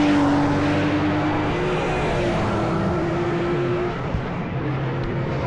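Race car engines running at speed on the circuit, several engines heard together at fairly steady pitch, with a slight drop in level about four seconds in.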